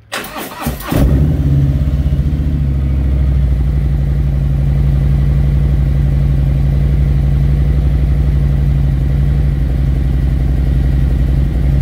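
Harley-Davidson Road Glide's Milwaukee-Eight V-twin engine: the starter cranks for about a second, then the engine catches and settles into a steady idle.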